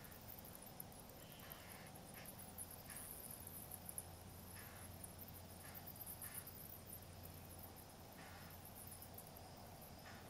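Faint evening marsh ambience: a steady, high, pulsing insect chorus with several short bird calls scattered through it.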